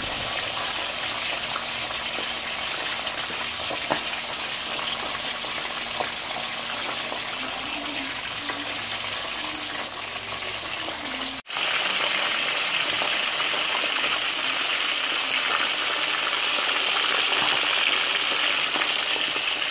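Whole tilapia frying in hot oil in a pan: a steady sizzle with a few sharp pops. About eleven seconds in the sound breaks off for a moment, then the sizzle returns louder and higher as the fish brown.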